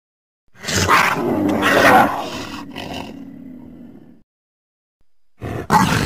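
A creature roar sound effect: one loud, rough roar that swells twice and then trails off over about two seconds. After a short silence, a second sharp roar begins near the end.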